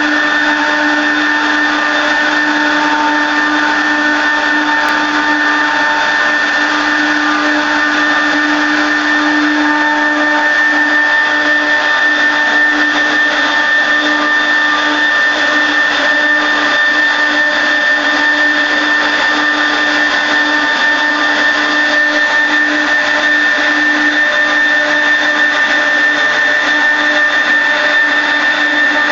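Spindle of a 4-axis CNC carving machine running steadily while carving a baluster, a constant high whine with steady tones over cutting noise.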